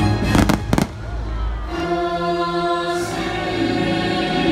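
A few sharp fireworks bangs in quick succession about half a second in, then a choir singing long held notes in the show's music.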